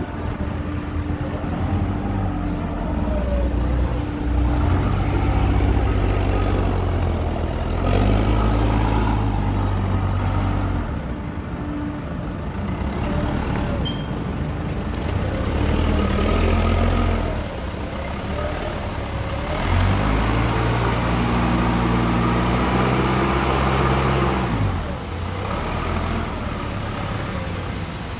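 Cat forklift with a paper-roll clamp, its engine running and revving up and down several times as it manoeuvres.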